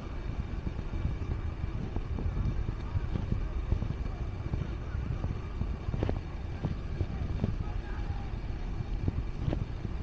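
Beach ambience: a steady low rumble with faint voices in the background and a few soft clicks.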